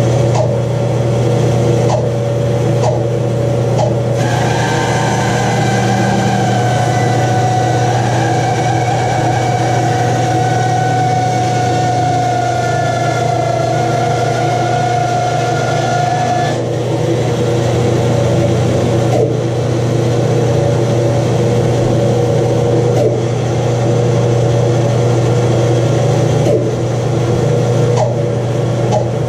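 Rikon bandsaw running with a steady low hum while a wood slab is fed through the blade. A higher, slightly wavering whine rides over it from about four seconds in and cuts off abruptly near sixteen seconds. A few light knocks fall here and there.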